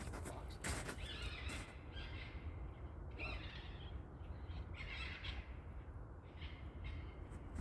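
Harsh, hoarse animal cries, about five of them, each about half a second long and roughly a second apart: the sound of animals fighting.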